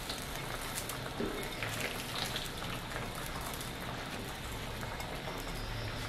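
Red crab broth simmering in a steel wok, a steady fine crackle of bubbling with scattered small ticks. A few soft patters come as handfuls of bean sprouts drop onto it.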